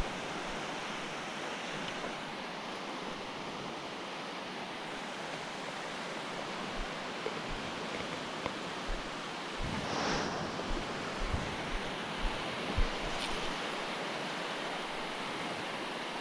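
Steady wash of surf breaking on a shallow, calm beach. About ten seconds in there is a brief louder rush, followed by a few soft knocks.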